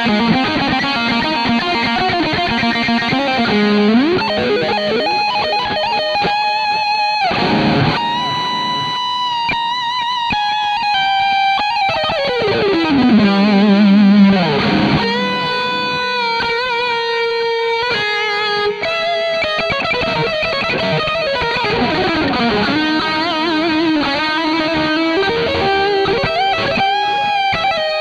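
Gusta GTL Telecaster-style electric guitar through a high-gain distorted tone on its Astro Burning Blade bridge mini-humbucker. It plays a lead line of held, sustaining notes, with long slides down in pitch around halfway through and again later.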